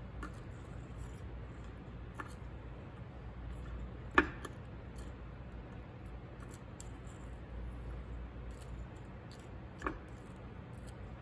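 Metal tongs clinking against silver pieces and the inside of a glass beaker as they are stirred in solution. There are faint small ticks throughout, one sharp clink about four seconds in and a smaller one near the end, over a low steady hum.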